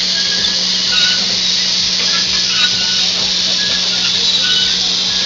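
Steady hiss of steam escaping from a standing DR class 23.10 steam locomotive, with a steady low hum underneath.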